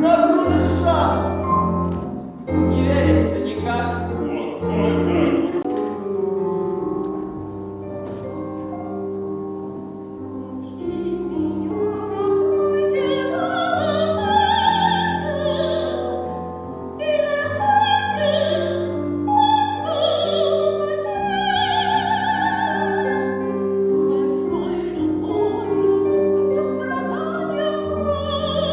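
Music: rhythmic instrumental chords at first, then, about a third of the way in, a voice singing in operatic style with a wide vibrato over sustained accompaniment.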